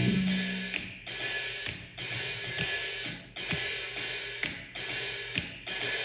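Instrumental music with a drum-kit rhythm of cymbal and hi-hat hits, each cut off short, about once a second, played through a 2021 14-inch MacBook Pro's built-in six-speaker system and picked up by microphones.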